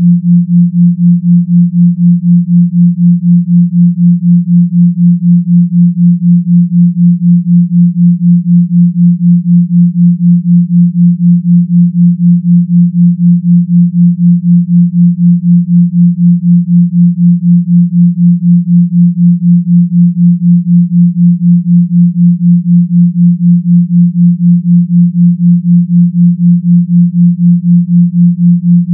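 Binaural-beat track of pure sine tones at 172 Hz and 176 Hz: a low, steady hum that pulses evenly about four times a second, the 4 Hz theta beat between the two tones.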